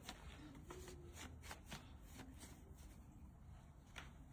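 Faint, scattered clicks and light rattles of a dirt bike's chain guide being wiggled loose by hand, its mounting bolts already removed.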